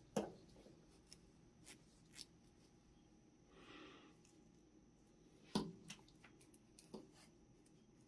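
Faint handling noises of a braided-sleeve power cable with a plastic 8-pin connector being moved in the hand: a few scattered light clicks and taps and a brief soft rustle.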